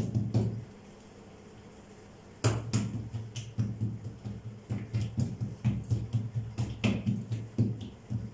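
Hands patting and pressing a round of feteer dough flat on a silicone mat over a table, making dull thuds about three a second that start about two and a half seconds in.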